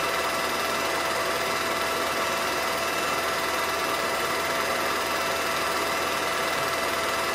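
Steady, unbroken whirr and clatter of a home-movie film projector running.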